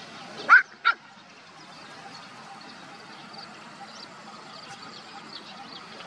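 A young puppy gives two short, high-pitched yips in quick succession, about half a second apart, near the start.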